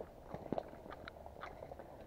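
Footsteps of a person walking outdoors: a handful of light, irregular crunches and clicks.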